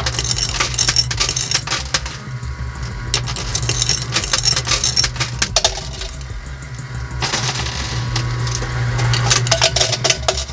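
Coins clinking and clattering in a coin pusher machine as they are dropped in and land on the pusher shelf, in three spells of rapid metallic clicks over a steady low hum.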